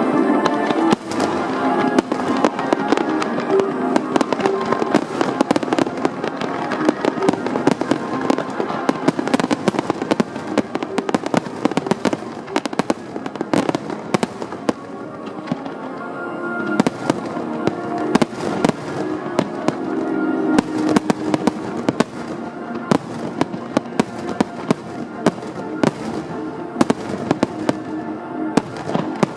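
Fireworks going off in a dense, continuous run of bangs and crackling pops, with music playing along. The pops crowd together most thickly toward the end.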